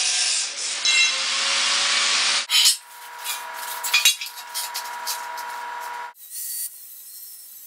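Angle grinder cutting into a rusty steel beam with a loud, steady grinding hiss. After about two and a half seconds the sound jumps to a quieter stretch of the grinder motor's steady whine with scraping knocks, and it drops lower again about six seconds in.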